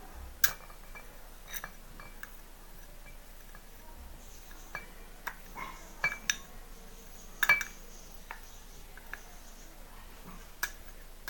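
Steel spoon clinking and tapping against glass as ground rue is spooned from a glass bowl into a glass jar: scattered sharp clinks, the loudest about seven and a half seconds in.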